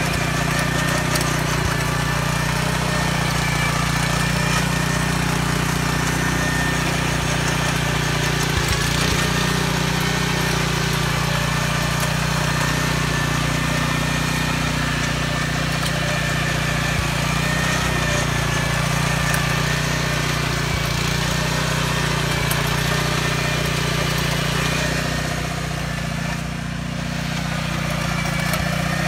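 Small gasoline engine of a walk-behind powered tiller running steadily under load as its tines work the soil, with a brief slight drop in level near the end.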